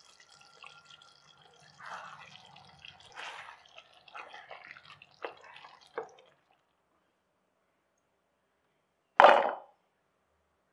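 Thick chicken curry gravy bubbling wetly in a pan as a spoon stirs it, with two sharp taps of the spoon against the pan about five and six seconds in. After a pause of about three seconds, garlic cloves drop into a steel mixer-grinder jar with one short, loud clatter.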